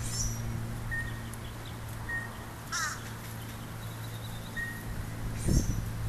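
Sandhill cranes calling in short rattling bursts, the loudest about three seconds in and another near the end.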